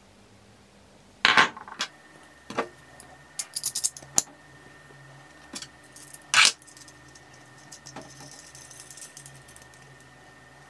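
Steel parts of an old hand vise clinking and knocking as they are handled: the threaded bolt is picked up and fitted through the vise's legs. The sharp metal clinks come one at a time, the loudest about a second in and about six seconds in, with a quick run of small ticks around four seconds.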